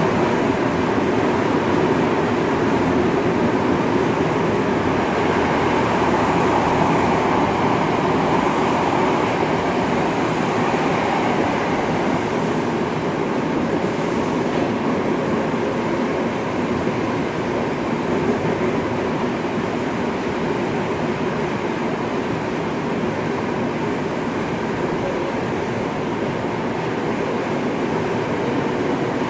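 Tokyo Metro 05 series subway train (set 14, car 05-214) running underground, heard from inside the car: a steady rumble of wheels, motors and tunnel noise that eases off a little partway through.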